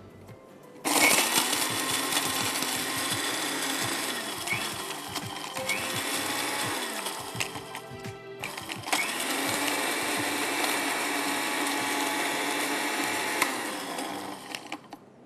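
Electric spice grinder running, dry-grinding roasted whole spices and coconut into a masala powder. It runs for about seven seconds, stops briefly, then runs again for about six seconds before winding down.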